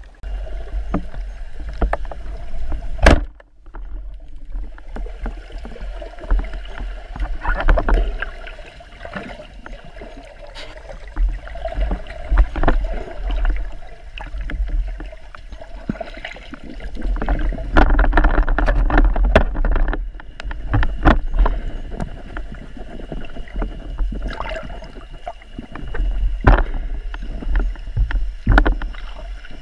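Muffled water rushing and low rumble picked up by an underwater action camera as a spearfisher swims, swelling and fading, with scattered sharp knocks and clicks; one loud knock about three seconds in.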